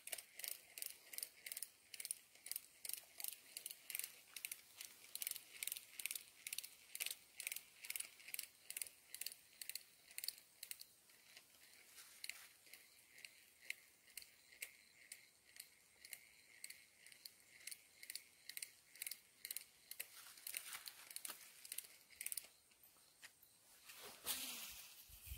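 Steady high-pitched clicking, about two to three clicks a second, with a louder rustle near the end.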